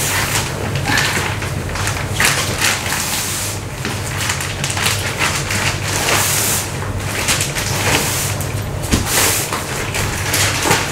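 Plastic film wrapping a new mattress rustling and crinkling as the mattress is shifted and pushed upright, with a steady run of sharp crackles and occasional dull thumps.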